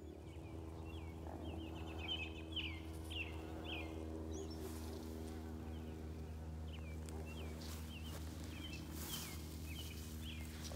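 Steady low buzzing hum of insects, with a bird giving a run of short, quick chirps over it, and a few brushes of footsteps through grass.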